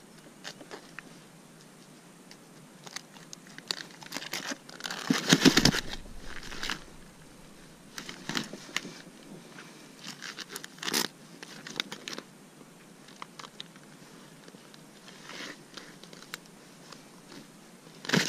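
Landing net being handled with a freshly caught fish in it: the mesh and frame rustle, crinkle and scrape in scattered short flurries. The loudest comes about five seconds in and carries a low thump.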